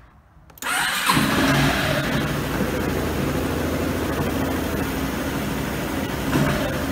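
Yamaha X-Max 250 scooter's single-cylinder four-stroke engine started on the electric starter: a brief whir about half a second in, then it catches and idles steadily. This is the first run with its valve clearances freshly set.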